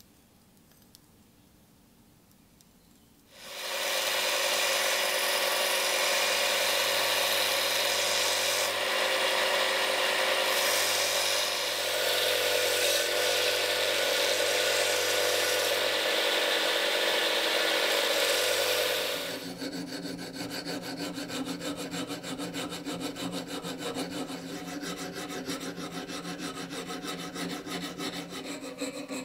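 An Einhell bench grinder runs with a low motor hum while the edge of a steel axe blade is ground against its wheel. This starts about three seconds in and stops sharply near the twenty-second mark. Then comes a fast, even run of hand-file strokes rasping along the blade's edge.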